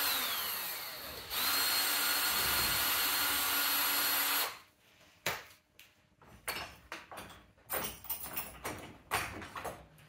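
Cordless drill-driver unscrewing a UPVC door's handle-set screws: the motor spins down with a falling whine, then runs steadily for about three seconds and stops sharply. After it, scattered clicks and knocks as the loosened handle is worked off the door.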